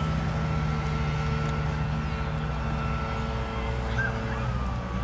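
A steady engine drone: a low rumble with a held humming tone that sags slightly and recovers about four and a half seconds in.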